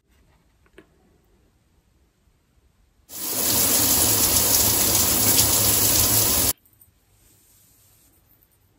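Shower head spraying a steady stream of water, starting about three seconds in and running for about three and a half seconds before cutting off abruptly.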